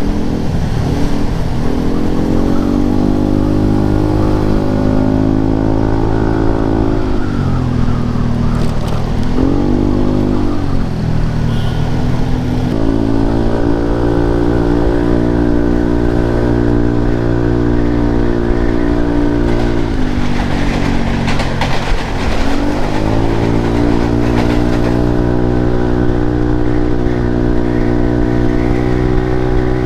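Yamaha Lexi scooter's single-cylinder engine running through an aftermarket Arrow exhaust under way. The note holds steady, drops off as the throttle is eased and climbs back, about seven to eleven seconds in and again around twenty seconds.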